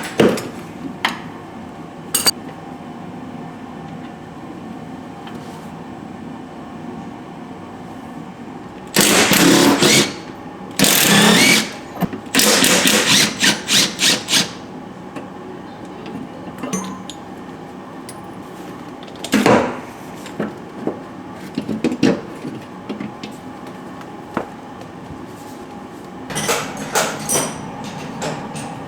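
Workshop tool noise: several loud bursts about a second long, the third broken into rapid pulses, with scattered clinks and knocks between them.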